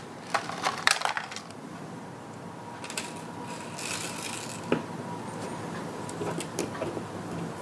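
Light clicks and taps of a small action figure with dangling chains being handled and set down on a tabletop. There is a quick cluster of clicks in the first second or so, then a few scattered taps.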